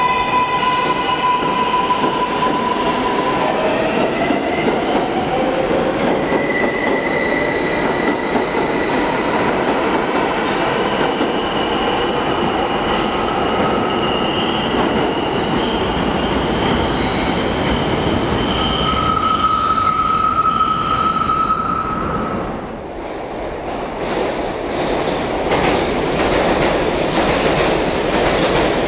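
New York City subway train pulling away, its traction motors whining in steady tones that glide upward in pitch as it speeds up, over loud running noise, with a wheel squeal near the end of its run. A break about two-thirds through leads into a second train passing quickly, its wheels clattering over the rail joints.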